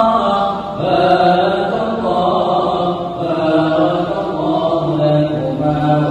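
A voice chanting long, held melodic notes without clear words, pausing briefly about a second in and again around three seconds in.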